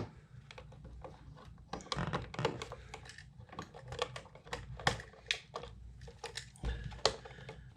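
Irregular small clicks and taps of plastic and metal as a USB wall outlet and its copper wires are handled, a stripped wire being fitted into a terminal.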